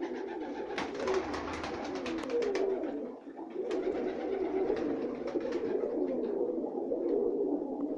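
A flock of Sisak tumbler pigeons cooing together, many overlapping low warbling coos. A quick run of sharp clicks sits over the cooing from about one to three seconds in.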